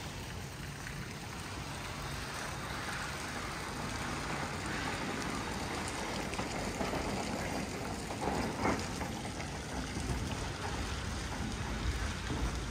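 Steady outdoor street ambience: an even rushing noise with a low rumble underneath, growing a little louder near the end.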